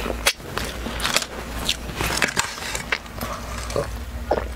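Close-miked chewing and wet mouth clicks of a person eating pizza, over a low steady hum. Near the end come sips and swallows from a glass.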